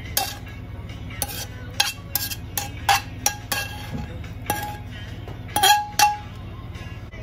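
Metal tongs and a metal pan clinking against each other and a ceramic plate as pasta is served, about a dozen irregular clinks, some with a short ring, the loudest two close together near the end.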